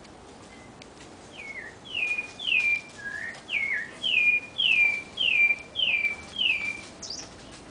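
A sabiá singing a run of about nine clear whistled notes, each sliding downward in pitch, roughly two a second, with a short rising note at the end.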